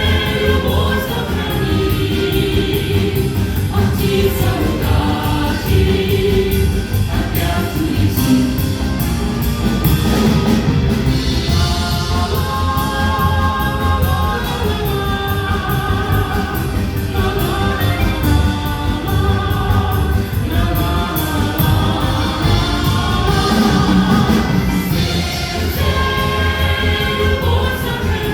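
Live song performance: a vocal ensemble singing in chorus over an instrumental ensemble's accompaniment with a steady bass.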